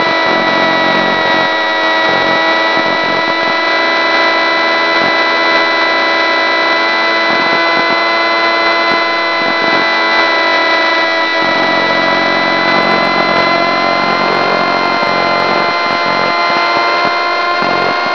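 RC model airplane's motor and propeller running steadily in flight, a constant whine made of several steady tones over a hiss. It is heard through the plane's onboard FPV camera audio, sent down over the 900 MHz video link.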